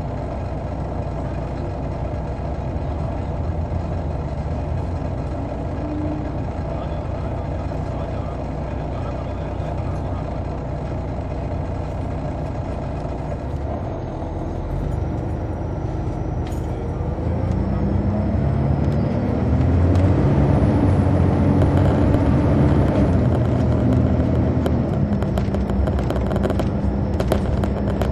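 Detroit Diesel Series 60 engine of a 2002 MCI D4000 coach, heard from the rear seats, running steadily, then pulling harder from a little past halfway with its note rising and growing louder as the bus accelerates, before settling to a steady pitch near the end.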